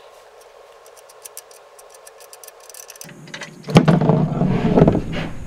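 Ratchet wrench clicking in quick runs as a bolt is loosened on the underside of a pickup truck. About three and a half seconds in, a much louder clattering noise lasts about a second.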